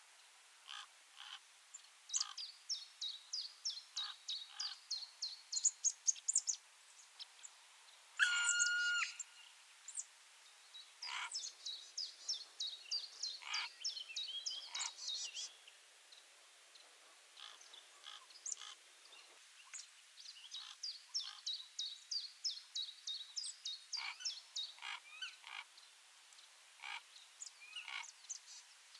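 Birds chirping in runs of quick, short, high notes lasting several seconds each, with one longer, level-pitched call about eight seconds in.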